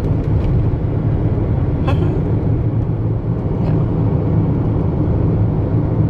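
Car driving, a steady low rumble of road and engine noise, with a few faint clicks.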